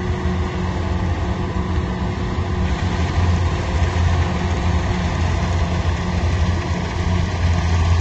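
A heavy engine running steadily, with a deep hum that grows a little louder about three seconds in.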